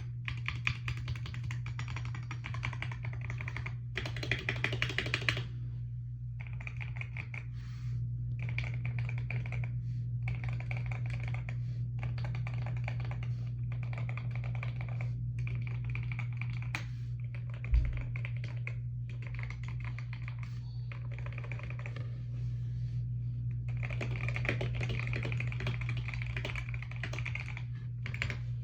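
Typing on a keyboard fitted with stock, unmodded Wooting Lekker V2 linear magnetic switches: fast runs of key clacks broken by short pauses, over a steady low hum. A single low thump about eighteen seconds in.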